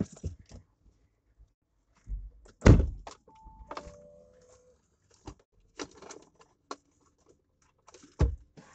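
Audi SUV's driver door opening with a heavy thump and knock, then a brief two-note electronic beep from the car. Scattered clicks and rustles and another sharp knock near the end, as someone gets into the driver's seat and handles things at the console.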